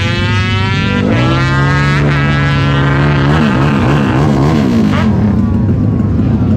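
Modified racing motorcycle engines revving hard, the pitch climbing and falling. About three and a half seconds in, quick throttle blips make the pitch wobble up and down, then the engine settles to a steadier run near the end.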